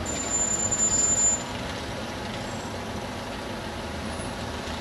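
Steady city street traffic noise, with a high-pitched squeal over the first second and a half that cuts off abruptly.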